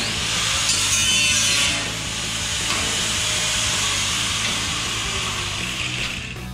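Angle grinder running steadily against the steel firewall of a 1928 Ford Model A, stripping paint and rust from around the old holes before they are welded shut.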